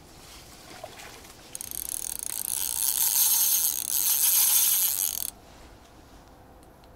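Fishing reel ratcheting with rapid fine clicking for about four seconds as a hooked carp is played; it starts about a second and a half in, dips briefly, and cuts off suddenly.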